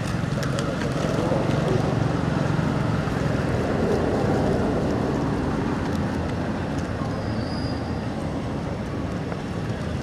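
Steady low rumbling background noise, a little louder in the middle, with a few faint clicks about half a second in.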